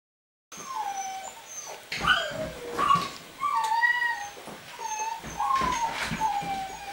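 Rhodesian Ridgeback puppy whining: a string of short, high whines, most sliding down in pitch.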